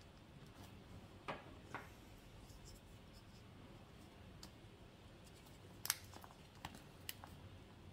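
A folding pocket knife being set to the plastic shrink wrap of a watch box: two soft crinkles a little over a second in, then a sharp click about six seconds in, the loudest sound, and a few faint ticks as the blade works at the wrap.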